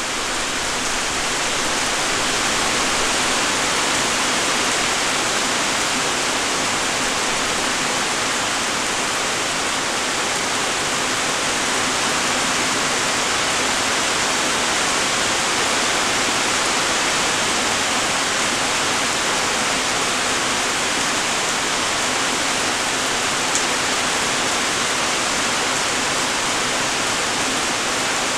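Light rain falling steadily: an even, continuous hiss of many raindrops, with one brief sharp tick late on.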